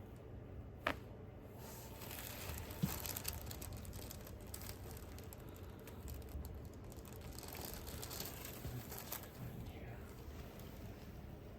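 Faint rustling and crinkling of a patient shifting on a chiropractic treatment table, with a sharp click a little under a second in and another near three seconds.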